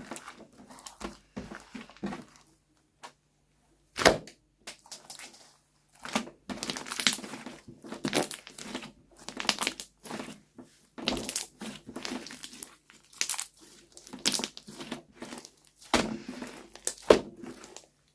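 Slime being kneaded and squeezed by hand, making irregular crackling, crinkling squishes. A few sharper snaps come about 4, 11 and 17 seconds in, and there is a short lull near the start.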